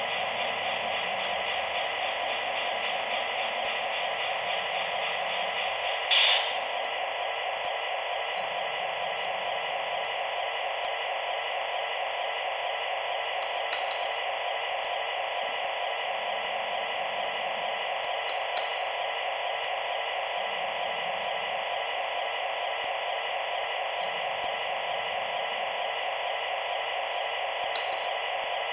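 Steady hiss like radio static, with one sharp click about six seconds in and a few fainter clicks later.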